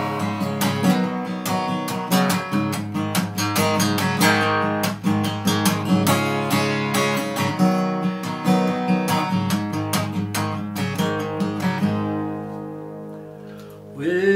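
Acoustic guitar strummed in a fast, driving rhythm as a song's introduction. About twelve seconds in, the strumming stops and a last chord is left ringing and fading.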